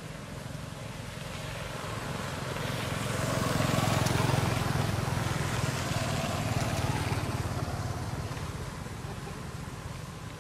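A motor vehicle, likely a motorbike, passes nearby: its engine hum and road noise swell to a peak about four seconds in, then fade away.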